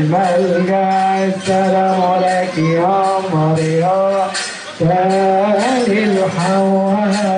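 Men's voices chanting a Coptic church hymn in long held notes that slide between pitches, phrase after phrase, with a few light metallic percussion strikes.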